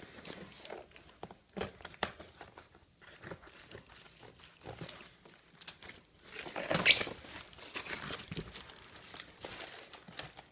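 Cardboard box and bubble-wrap packaging being torn open and handled by hand: scattered rustling, crinkling and crackling, with one loud rip about seven seconds in.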